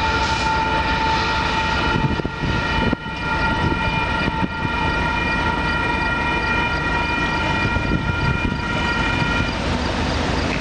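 Electronic railroad-crossing bell ringing steadily while the crossing gates rise, stopping near the end as the gates come fully upright and the crossing clears. A steady low rumble runs underneath.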